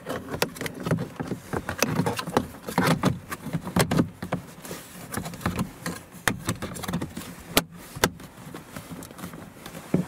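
A plastic power window master switch panel being pressed back into a Toyota RAV4's driver-door armrest trim: rattling and scraping, with a run of sharp clicks and knocks. Two crisp snaps come about three-quarters of the way through.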